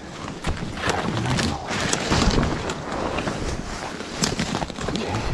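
Close rustling and handling noise with scattered clicks: someone crawling back inside a camp shelter, fabric and gear shifting against the microphone.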